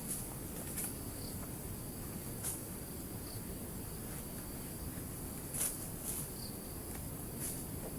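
Forest insects keep up a steady, high-pitched chorus. A few sharp clicks or snaps break in, about two and a half seconds in and twice near six seconds.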